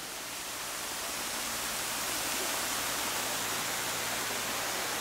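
Steady, even outdoor hiss with no distinct events, growing louder over the first couple of seconds and then holding level.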